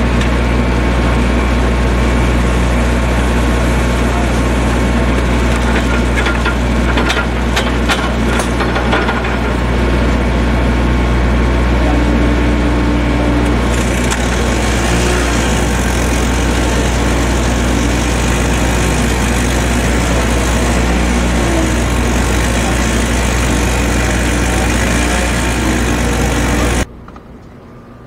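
A small engine running steadily close by, with a few sharp knocks about seven to nine seconds in. It cuts off abruptly near the end.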